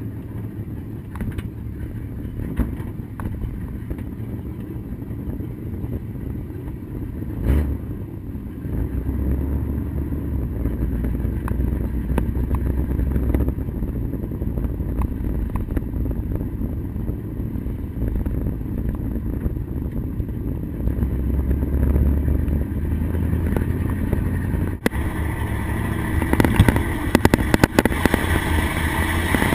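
Vintage pickup truck driving, heard inside the cab: a steady low engine hum with road noise, growing louder about eight seconds in. A short thump comes about seven and a half seconds in.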